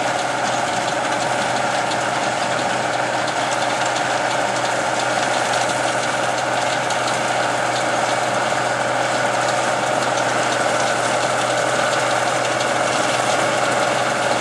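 International Harvester 1480 Axial-Flow combine running steadily under load as it picks up and threshes windrowed browntop grass seed: the engine and threshing machinery make an unbroken drone.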